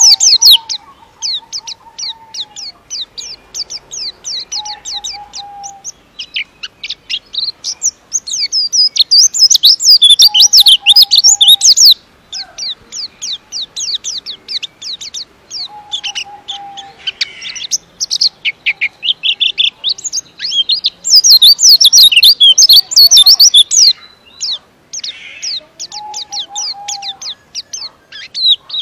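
Caged white-eye (pleci) singing a long, fast, densely packed twittering song, in runs of rapid high notes that swell loudest about a third of the way in and again about three quarters through. A short lower whistled note recurs every few seconds beneath it.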